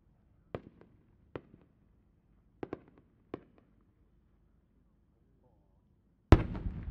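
Japanese chrysanthemum aerial shell with rising effects, a triple-pistil changing chrysanthemum: about seven short sharp pops over the first few seconds as the effects on its climb go off. Then, after a quiet gap, one loud boom near the end as the shell bursts, the report rumbling on afterward.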